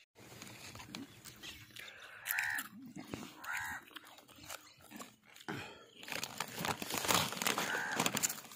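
Plastic snack packets and peanut shells crackling and rustling as they are handled and eaten, loudest in the last few seconds. A crow caws three times over it.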